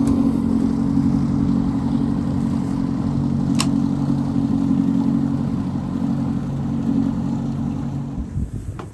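Boat motor running steadily at low speed, then dropping away about eight seconds in. A single sharp click sounds a few seconds in.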